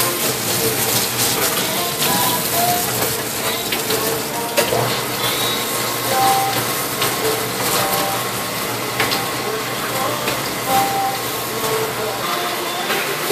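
Water spraying from a hand-held nozzle onto the brush rollers of an egg-washing machine, driven by its small 12-volt DC pump, which the machine's three-way valve lets act like a pressure washer for clean-up. Steady hiss of spray over the pump's hum, with short squeaks and clicks here and there.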